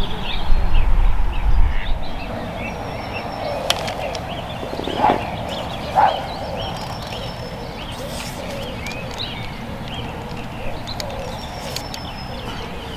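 Small birds singing and chirping around a lake, with a couple of louder calls about five and six seconds in. Wind rumbles on the microphone for the first two seconds.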